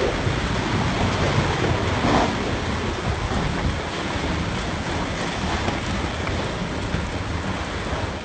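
Heavy rain and wind of a severe thunderstorm, heard as a steady, dense noise.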